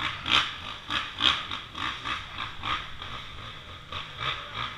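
Dirt bike engine running at low speed, with uneven pulses a few times a second and a rattle.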